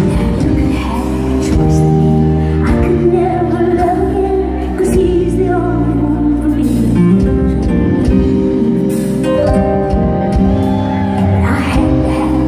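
Live performance of a country song: a woman singing over acoustic guitar and a backing band, the music continuing without a break.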